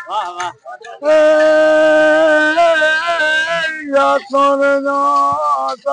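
An elderly man singing a devotional song close to the microphone, unaccompanied by other sounds: a few short gliding notes, then one long, wavering held note, then further notes.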